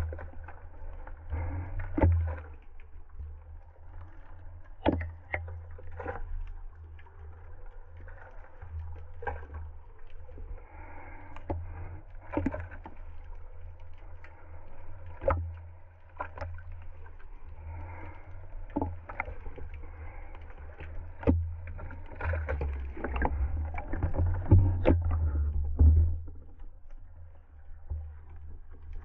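Muffled water noise heard through an action camera's waterproof housing: a steady low rumble with irregular clicks and knocks, busier and louder for a few seconds near the end.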